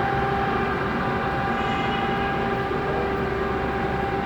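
Steady machinery hum with several steady whining tones over a low rumble, unchanging throughout.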